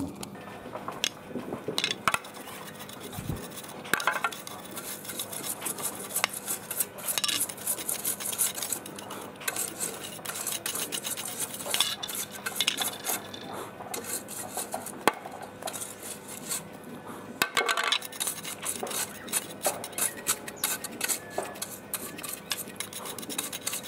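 A stiff plastic-bristle hand brush scrubbing and flicking dust off an air pump's plastic housing and filter pad, in quick, irregular scratchy strokes with light clattering knocks.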